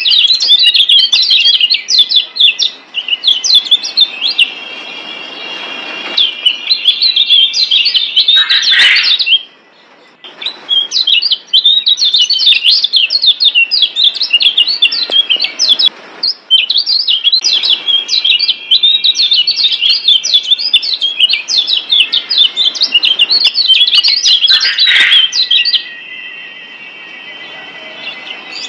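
Lombok yellow white-eyes (kecial kuning, a Zosterops white-eye) singing in fast, dense runs of high chirps and twitters. The runs are broken by a brief pause about ten seconds in and a quieter stretch near the end.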